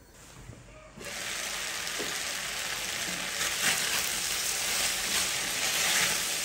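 Potato strips and mushrooms sizzling in hot oil in a pan, stirred with a spatula. The sizzle starts suddenly about a second in and stays loud and steady, with light scrapes of the spatula against the pan.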